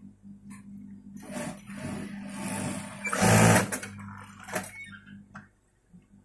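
Typical industrial sewing machine in use: a steady low machine hum under the rustle of fabric being handled and fed. A short, loud burst of the machine running comes about three seconds in.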